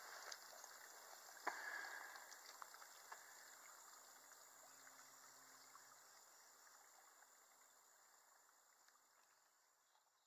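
Near silence: the faint trickle of a small stream, fading out toward the end, with one sharp click about a second and a half in.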